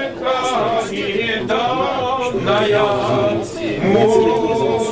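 A few voices singing together, unaccompanied.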